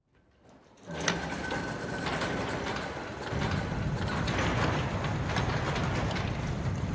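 A rattling mechanical noise full of small clicks starts suddenly about a second in. A deeper rumble joins about three seconds in.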